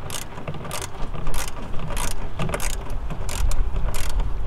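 Hand ratchet wrench clicking in short runs, about one or two a second, with each back-stroke as a headlight mounting bolt is tightened.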